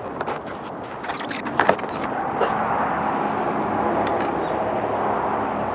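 Clicks, knocks and rattles as the folded handlebar stem of a DYU C3 14-inch folding e-bike is raised and its foam packing pulled off. A steady rushing background noise builds up about two seconds in and holds.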